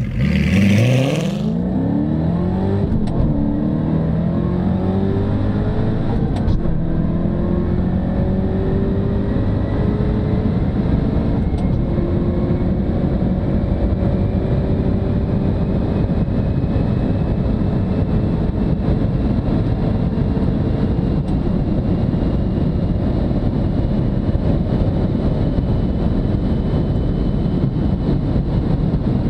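Ford GT's supercharged 5.4-litre V8 at full throttle on a standing-mile top-speed run. It launches and shifts up quickly through the low gears in the first seconds, then pulls long and slowly rising in the high gears under heavy wind and tyre noise. It eases off near the end as the car passes about 190 mph.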